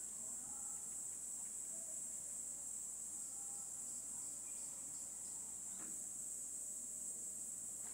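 Steady high-pitched chorus of insects chirring in woodland, with one faint short rustle a little before six seconds in.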